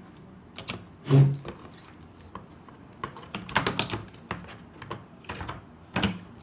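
Toy parts from a doctor set clicking and knocking as they are handled and fitted into place. The clicks are irregular, with a louder knock about a second in and a quick cluster a little past halfway.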